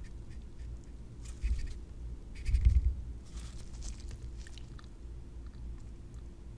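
Rustling and rubbing handling noise in a few short bursts during the first half, each with a low rumble, then quieter with only faint scattered ticks.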